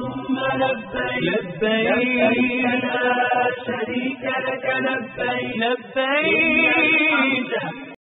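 Unaccompanied chanted singing, a devotional vocal with no instruments, that cuts off abruptly near the end.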